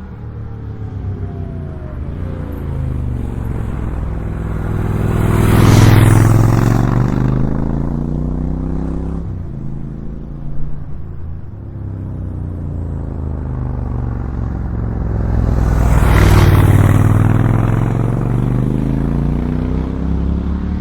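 Triumph Scrambler 1200XE's 1200cc parallel twin running through its decat open exhaust on the road, a deep, rumbling note. The engine rises to a loud peak about six seconds in, eases off, then swells again to a second peak about halfway through, each peak with a rushing sweep.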